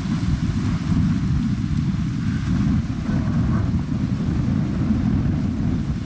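Strong wind buffeting the microphone: a loud, low, fluttering rumble with no letup.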